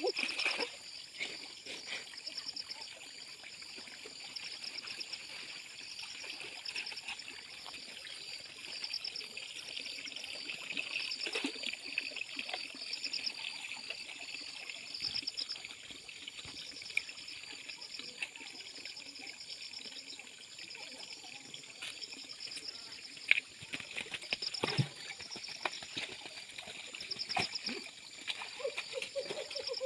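Muddy pond water trickling and sloshing as a man wades waist-deep and sweeps a long-handled hand net through it, with a few sharper splashes near the end. A steady, high pulsing chirp runs in the background.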